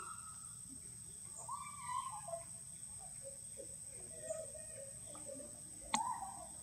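Faint animal calls: a few short rising-and-falling cries about two seconds in, then low warbling notes around four to five seconds in, with a sharp click near the end.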